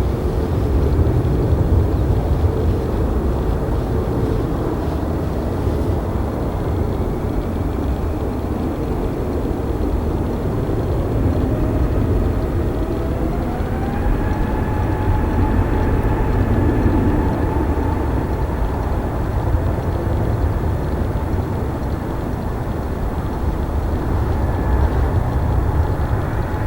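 Airbus A320neo's CFM LEAP-1A turbofan engines running with a steady low rumble. About twelve seconds in, the engine whine rises in pitch over a couple of seconds and then holds steady: the engines spooling up to higher thrust.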